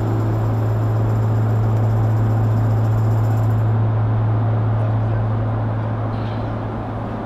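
Steady roar of an airliner cabin in flight, a broad rushing noise over a strong low hum, easing off slightly near the end.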